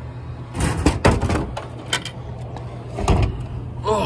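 Plastic clunks and rattling at a Pepsi vending machine's delivery bin as a Diet Pepsi bottle is dispensed and taken out: a quick cluster of knocks about a second in, then single knocks near two and three seconds in, over a steady low hum.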